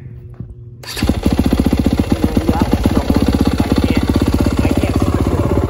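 A 2021 Yamaha YZ250F's 250cc single-cylinder four-stroke engine, electric-started, catches about a second in and settles into a steady idle with rapid, even firing pulses.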